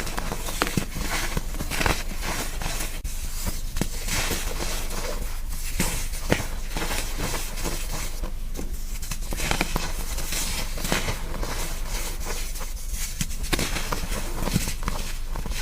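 Blocks of gym chalk being crushed by hand: a dense, continuous run of crunches and crackles as the chalk crumbles.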